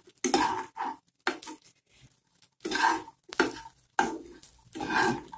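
Metal spoon scraping and clinking against a stainless steel wok while vegetables are stirred, in about six short strokes with a pause of about a second near the middle.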